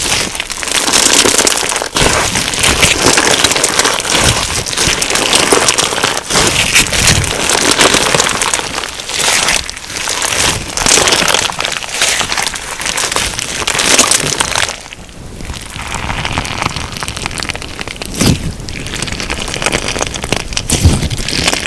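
Crunchy slime packed with sugar beads being squeezed and pressed, giving a dense crackle of tiny beads popping and crunching. It eases off briefly partway through, then picks up again.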